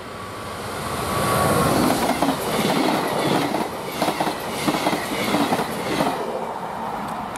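Electric passenger train passing close by. The rush of wheels on rail swells over the first two seconds, then comes a quick clickety-clack of wheels over rail joints as the coaches go by, fading after the tail passes.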